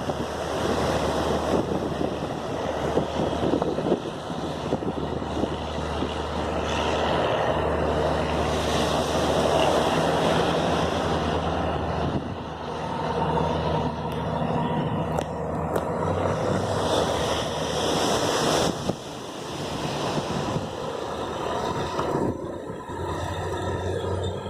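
An engine running steadily under a haze of surf and wind noise on the microphone.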